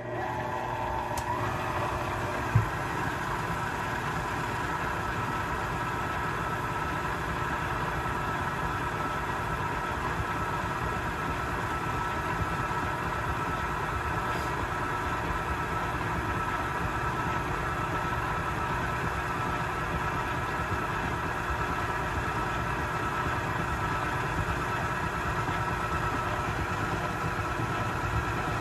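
Electric stand mixer motor running, mixing a flour-and-water cookie dough: it spins up with a rising whine in the first second, then runs at a steady speed. There is a single click about two and a half seconds in.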